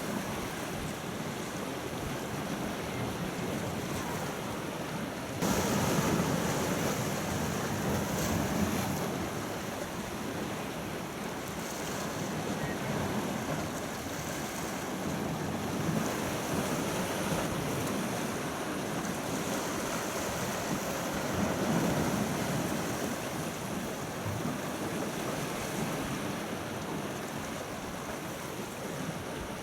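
Steady rush of sea and wind, with wind buffeting the microphone; it turns suddenly louder about five seconds in for a few seconds, then settles back.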